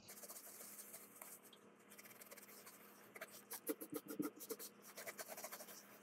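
Faint scratchy rubbing of a towel scrubbing a stain on a wall, many quick small scrapes, a little louder about midway.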